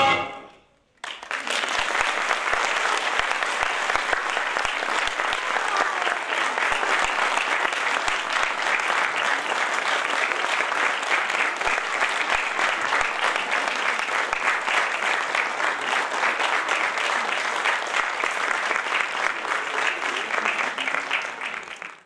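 The final notes of a piece of music fade out, and about a second in an audience breaks into steady applause at the end of the dance, which cuts off abruptly just before the end.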